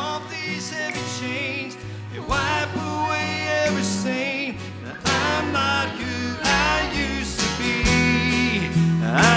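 Live worship band music: a man singing and strumming an acoustic guitar, backed by the band.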